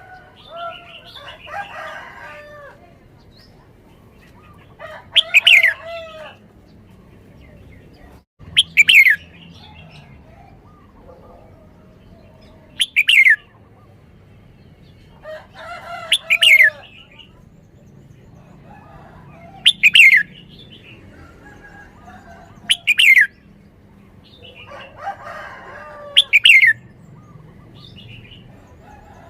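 Red-whiskered bulbul singing, repeating a short, loud phrase of sharp falling whistled notes about every three to four seconds, with softer warbling between some of the phrases.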